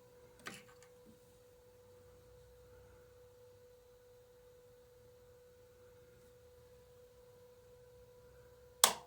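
A faint steady high hum, one tone with a weaker overtone, from a powered-up guitar amplifier rig. A small click comes about half a second in, and a loud sharp switch click near the end as the Sound City Master Lead 50 valve amp's standby switch is flipped off.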